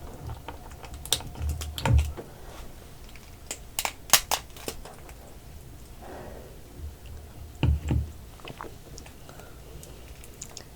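Close-miked eating of soy-sauce-marinated raw crab: scattered sharp clicks and cracks of crab shell, with the densest run about four seconds in, and heavier wet bites and chewing about two and eight seconds in.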